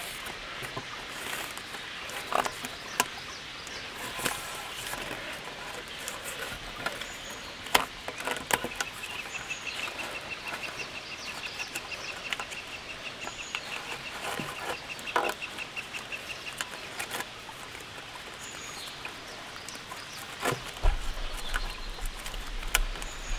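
Rain pattering, with scattered drops ticking sharply. A bird gives a long, even, rapid trill for several seconds midway, among a few short high chirps. A low rumble and some knocks come near the end.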